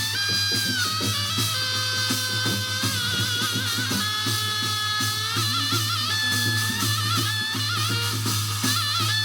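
Music with a steady drum beat under a melody of held notes, some of them wavering.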